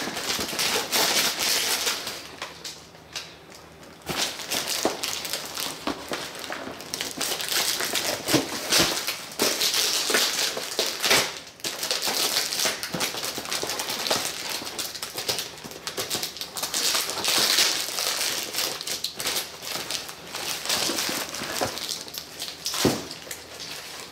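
Plastic packing wrap crinkling and crackling as parts are unwrapped, with a short lull about two to four seconds in.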